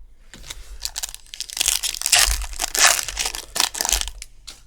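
Foil trading card pack wrapper being torn open and crumpled, a dense crinkling that builds to its loudest in the middle and dies away near the end.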